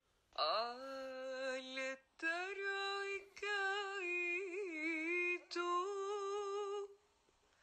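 A single voice singing unaccompanied in four long phrases of held notes. The first phrase is lower and the later ones higher, with a slight waver in pitch in the middle.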